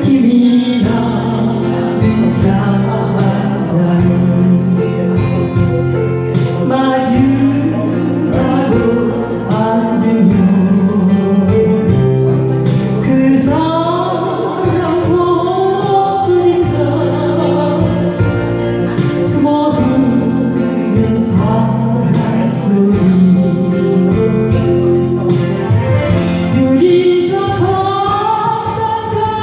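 A solo singer performing a Korean ballad live, with held notes and vibrato, over a recorded accompaniment with a steady beat.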